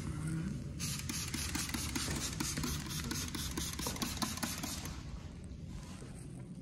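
Hand-held trigger spray bottle squirting cleaner onto a stainless-steel restroom partition: rapid repeated hissing squirts that start about a second in and fade after about four seconds, over a steady low hum.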